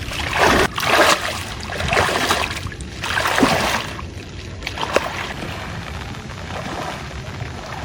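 Water splashing and sloshing in several loud surges during the first four seconds, with a couple of sharp knocks about five seconds in, then a steadier, quieter wash of noise.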